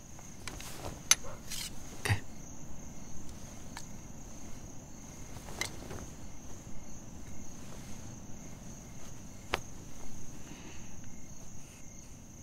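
Crickets chirping steadily in a night-time ambience, with a few short clicks or rustles scattered through it.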